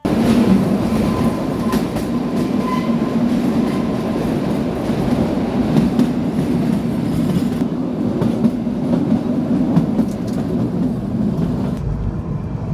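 Narrow-gauge Kalka–Shimla train running, heard from inside a coach by an open window: a steady rolling rumble with light clacking of the wheels on the rails.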